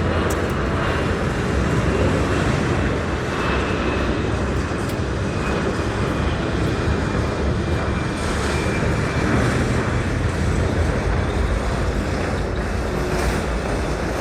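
Steady engine rumble with a faint high whine that drifts slowly in pitch.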